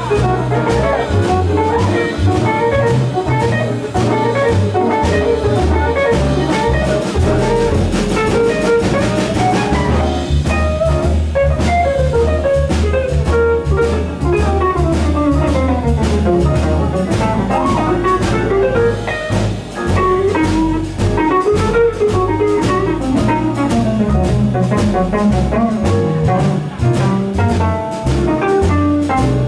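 Live jazz band playing a slow blues in an instrumental passage: double bass and drum kit underneath, with a melodic solo line weaving over them and no singing.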